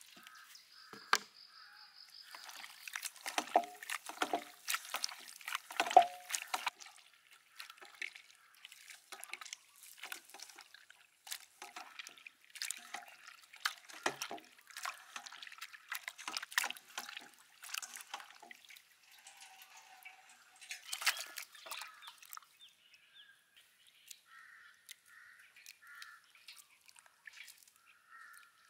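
Raw pork chitterlings being kneaded and wrung by hand in a steel bowl of water: irregular wet squelches and splashes, busy at first and thinning out to quieter sloshing after about two-thirds of the way through.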